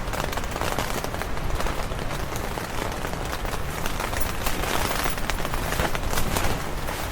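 Storm wind buffeting and flapping the tent's fabric walls, with rain striking the tent in a dense crackle of small taps over a low rumble of wind.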